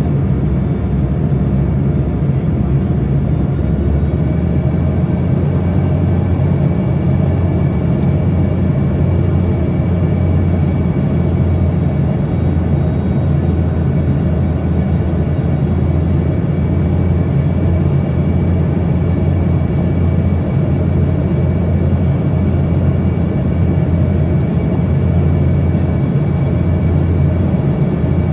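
Steady drone of an airliner's engines and rushing air, with several high whining tones over a heavy low rumble; a few of the whines rise slightly in pitch about four seconds in, a small change in engine power.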